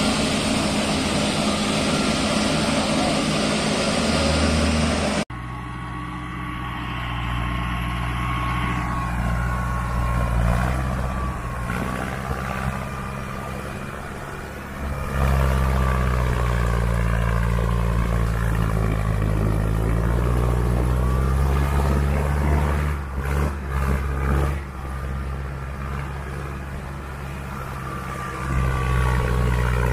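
Tractor diesel engine working under load, hauling a fully loaded soil trolley. The sound cuts off sharply about five seconds in and picks up again, and from then on the engine note rises and falls.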